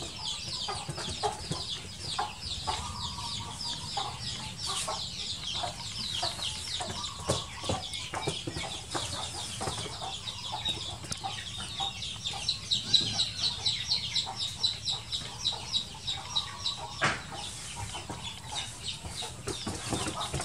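Chickens calling: a continuous run of high, quick peeps, several a second, with occasional lower clucks.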